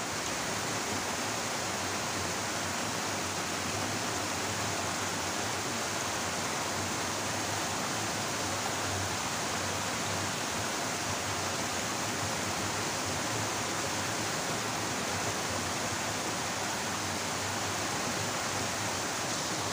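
Water pouring from a concrete outflow into a shallow, muddy stream: a steady rushing splash that holds level throughout.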